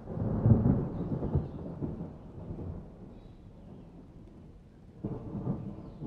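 Low rumbling that swells right at the start, fades away over a couple of seconds, and swells again about five seconds in.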